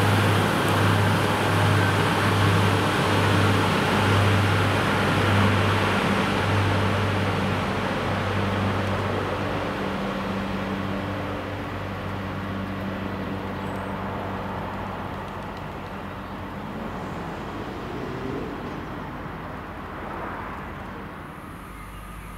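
A British Rail Class 144 Pacer diesel multiple unit pulls away, its underfloor diesel engine giving a low drone that pulses at first, then fades steadily as the unit draws off into the distance.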